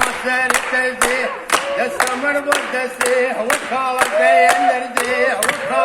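Voices singing over a steady beat of sharp claps, about two a second.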